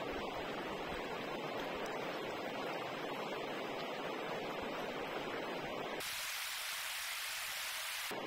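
Shallow river rushing steadily over rocks. About six seconds in, the sound turns thin and hissy for about two seconds, losing its low rumble, then returns.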